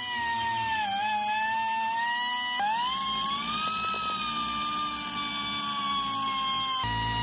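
High-speed rotary tool with a small abrasive cut-off disc, whining steadily as it grinds through the head of a solid rivet on a cast-iron frame. The pitch sags about a second in as the disc bites, and jumps abruptly twice.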